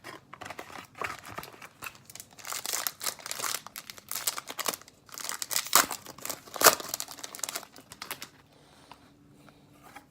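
Upper Deck SPx hockey card pack wrapper being torn and crinkled by hand: a run of crackling rustles for about eight seconds, with a couple of sharper crackles late on, then it stops.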